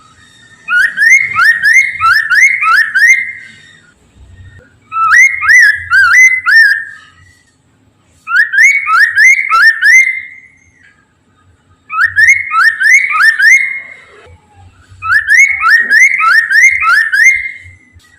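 Poksay mandarin laughingthrush singing loud bouts of rapid, rising whistled notes, about three or four a second, five bouts in all with short pauses between.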